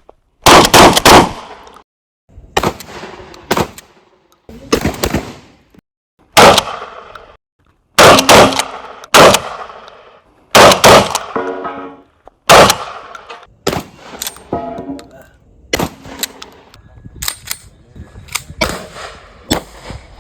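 A series of gunshots, about fifteen sharp loud reports with echoing tails, several of them in quick succession near the start and again around a third of the way in. After a few of the shots comes a brief metallic ringing.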